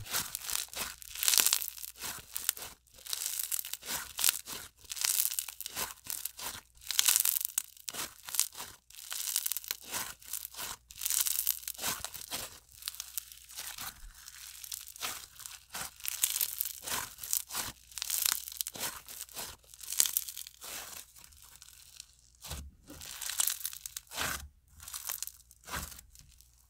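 Hands squishing and stretching a crunchy clear-based microflow slime mixed with snow slime, giving irregular crisp crackles and small pops, clustered in quick bursts throughout.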